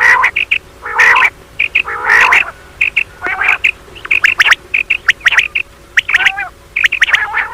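Common quail calling: quick short high chirps, with a louder rasping call about once a second. This is the female quail mating call used as a lure in quail hunting.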